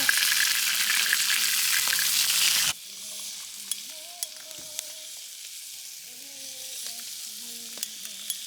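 Food sizzling and crackling on a hot grill. It is loud for the first three seconds, then cuts off suddenly to a much quieter sizzle with scattered small pops.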